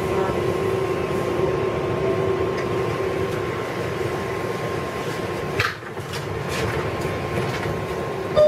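R188 subway car running with a steady hum and whine as it slows to a stop, then, about five and a half seconds in, a sharp clunk and rush as the side doors slide open.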